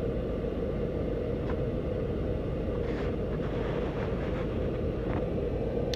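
Newly installed HVAC blower motor in a 2005 Toyota Camry running, a steady rush of air with a constant hum. It is the sound of the replaced blower working again.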